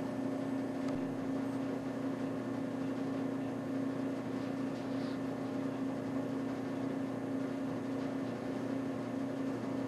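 A steady low hum with a faint hiss behind it, holding one even pitch without change.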